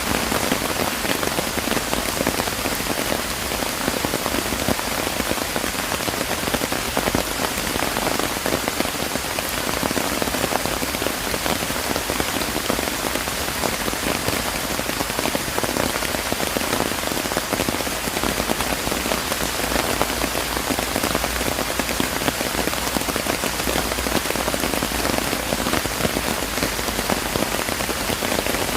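Steady rain falling and pattering on surfaces, a dense even hiss of many drops.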